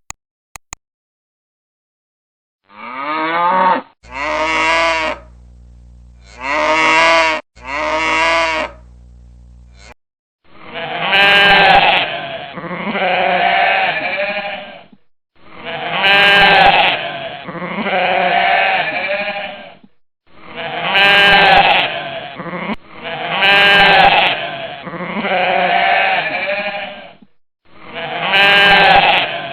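Goat bleating over and over: a few shorter calls, then longer quavering bleats, mostly in pairs.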